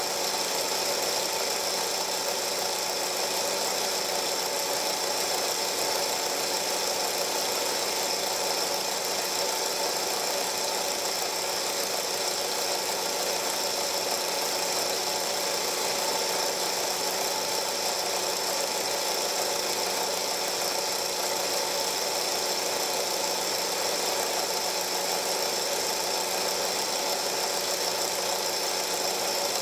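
Steady mechanical whirr and hum of a film projector running, holding the same pitch throughout with a high hiss on top; it stays unchanged across the cuts between shots, so it is the projector heard in the old home movie's transfer, not the boats on screen.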